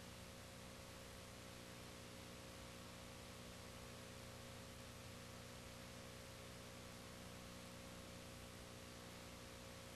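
Near silence: a faint steady hum and hiss, with no sound from the scene itself.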